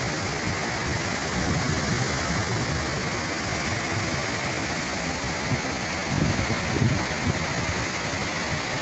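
Steady rushing noise of hill-torrent floodwater, with uneven low rumbling that swells about six to seven seconds in.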